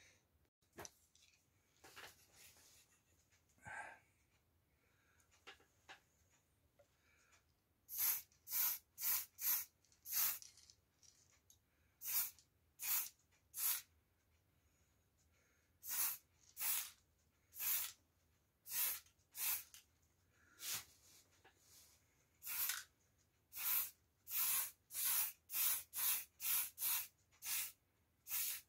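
Aerosol spray-paint can fired in many short bursts of hiss, each under half a second, starting about eight seconds in and coming faster near the end. Before that, only faint handling knocks.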